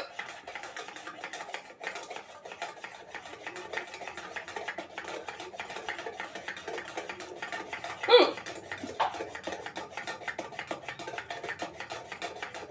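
A woman hiccups sharply once about eight seconds in, with a weaker hiccup about a second later, over faint, continuous small clicking and rubbing.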